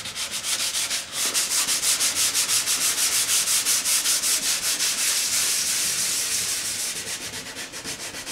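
Hand sanding of primer on a metal-skinned aircraft wing with 320-grit open-coat sandpaper: quick back-and-forth strokes making a rhythmic scratchy hiss, several strokes a second, louder from about a second in until near the end. It is a light scuff-sand of smooth primer to give the top coat something to grip.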